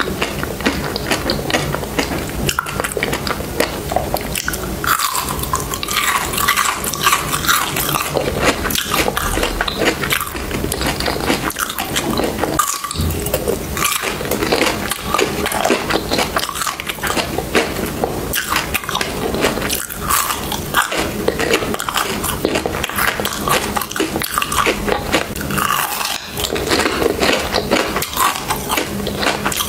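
Close-miked biting and chewing of crunchy frozen basil-seed ice, a dense, irregular run of crunches and clicks.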